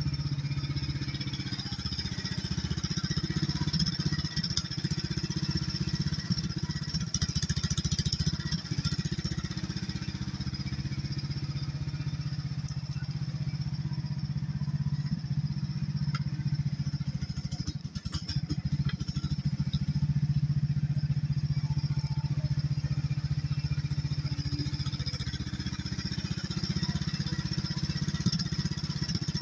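Hightop HT10 mini excavator's engine running steadily as it digs and swings its bucket, its drone shifting slightly with the work, with a few short knocks along the way.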